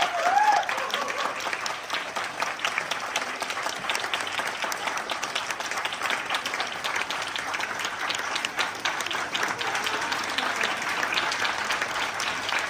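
Audience applauding steadily: a crowd of many hands clapping.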